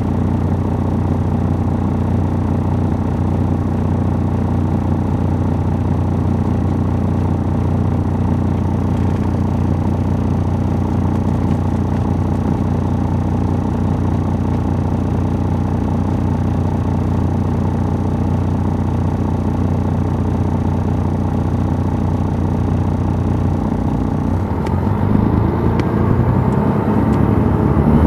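Detroit Diesel Series 60 inline-six diesel of an MCI D4500 coach, heard from on board, running steadily at low speed. About 24 seconds in it revs up, rising in pitch and getting louder.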